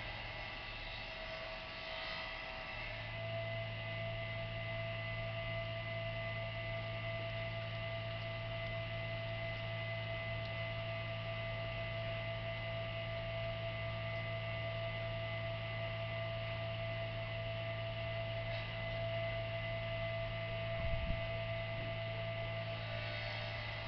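Steady electrical hum with a few constant higher tones over it, unchanging throughout, and one brief low knock near the end.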